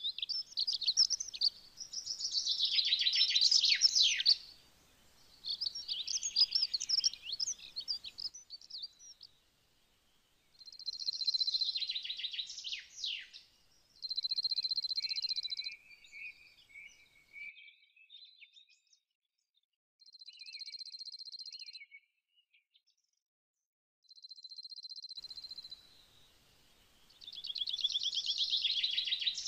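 Small birds chirping and trilling at a high pitch, in a string of short bursts of one to four seconds with quiet gaps between.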